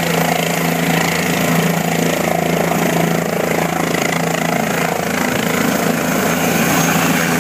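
Helicopter running at takeoff power, its main rotor and engine making a loud, steady hum with a constant low tone, as it lifts off the pad near the end.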